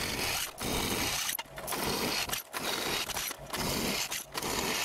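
Drill press pre-drilling a hole in steel square tubing with a small bit: the steady hiss and grind of the bit cutting steel, broken by short pauses about once a second.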